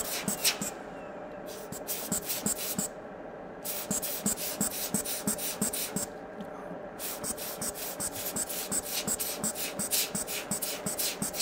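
Brush scrubbing isopropyl alcohol over an iPhone 8 logic board to clean off leftover flux: quick repeated strokes, several a second, broken by a few short pauses.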